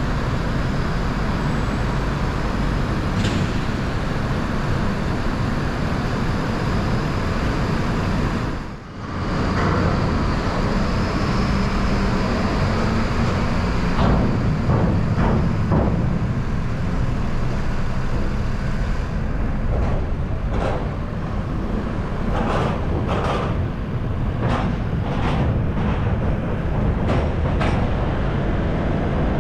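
Toyota Land Cruiser driving slowly off a ferry's car deck and down the steel ramp: steady engine and road rumble, with a string of sharp knocks in the second half as the tyres cross the ramp's plates and joints. The sound drops out briefly about nine seconds in.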